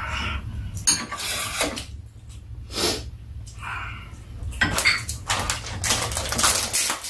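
Metal spoons and chopsticks clinking and scraping against ceramic bowls during a meal, in separate sharp clicks. Near the end comes a denser run of crackling, likely a small plastic food packet being handled and opened.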